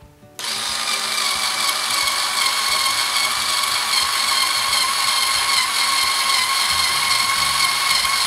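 Hyper Tough 4.8-volt cordless screwdriver with a drill bit in its chuck, running steadily under pressure as it bores a pilot hole into a wooden shelf board. Its motor and gear whine starts about half a second in and holds one even pitch.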